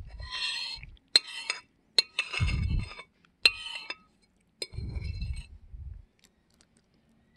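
Metal fork scraping and clinking on a plate while gathering up the last crumbs: several short scrapes, each starting with a sharp clink, in about five rounds. Two stretches of low dull rumbling under the scrapes.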